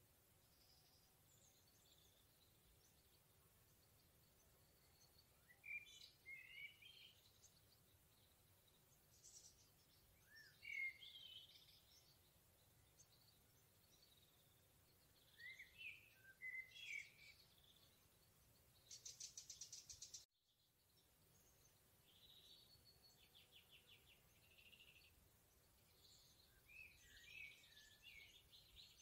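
Wild songbirds singing in a forest: short, separate phrases of quick chirping and gliding whistled notes, faint against a low steady background. About twenty seconds in, a rapid, evenly pulsed trill, then the sound cuts out for a moment before more song and a second short trill follow.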